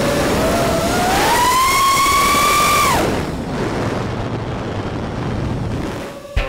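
Motors and three-blade props of a 5-inch FPV racing quadcopter (2306 2450 kV brushless motors) whining in flight, as heard through a RunCam Split 2's onboard microphone. The whine climbs in pitch about a second in, holds, then drops away about three seconds in, leaving a rushing noise.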